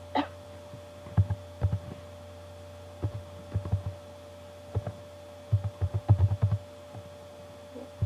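Computer keyboard keys being typed in short runs of clicks and dull thumps, picked up close to the microphone, over a steady electrical hum.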